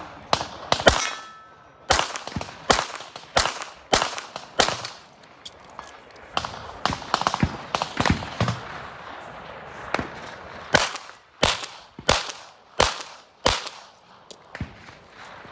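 Competition handgun shots fired in quick strings, each about half a second to a second apart, with a break of a few seconds in the middle before another string of shots.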